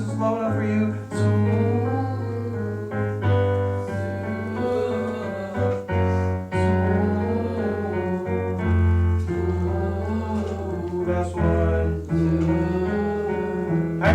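Choir singing a vocal warm-up exercise with piano accompaniment: sustained piano chords under voices holding and moving between pitches.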